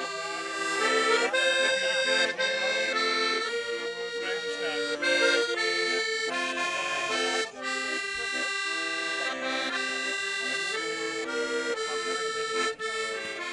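Piermaria piano accordion playing a melody over held chords, its notes changing in quick steps, with two brief gaps in the sound.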